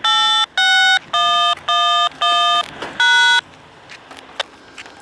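Touch-tone (DTMF) code tones over railroad radio, heard through a handheld scanner's speaker: a quick run of about six two-note beeps, a train crew keying in the code that activates a grade crossing. Low radio hiss with a few faint clicks follows.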